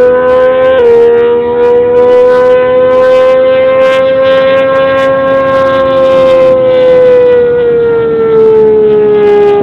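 Homemade 6-litre V12 engine running at high rpm under full load, a loud, steady high-pitched note. Its pitch dips slightly about a second in, climbs slowly, then falls away over the last couple of seconds.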